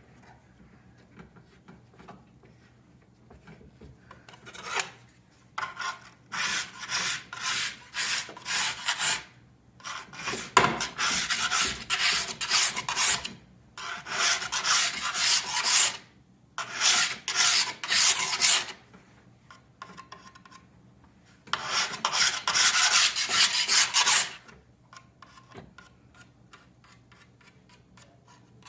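Hand sharpening stone scraping back and forth along the steel base edge of a ski bike ski. The quick strokes come in several runs with short gaps, a longer pause, then one more run, and stop a few seconds before the end.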